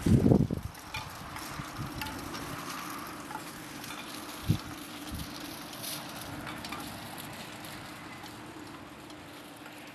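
Wind buffeting the microphone, with a strong gust right at the start and one short low thump about four and a half seconds in. Under it, a faint steady low hum and scattered light clicks and rattles.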